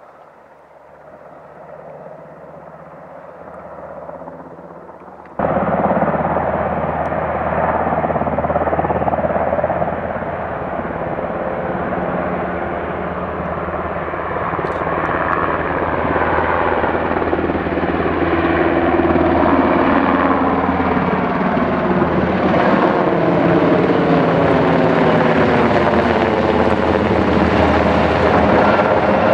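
UH-60 Black Hawk helicopter flying toward and then close overhead: a steady rotor and turbine din that grows louder, jumps up suddenly about five seconds in, and carries sweeping, falling tones near the end as it passes almost overhead.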